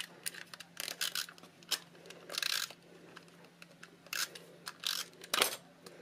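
Stampin' Up! Snail adhesive tape runner drawn over the back of a small cardstock circle in several short raspy strokes, with small clicks and card handling between them.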